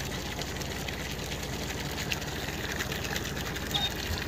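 A fishing boat's engine running steadily, an even hum.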